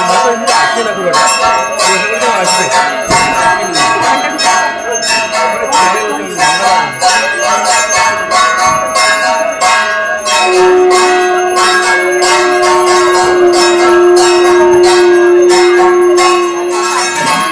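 Aarti bells ringing rapidly and continuously as the lamp is offered. From about ten seconds in, a conch shell is blown in one long steady note that stops just before the end.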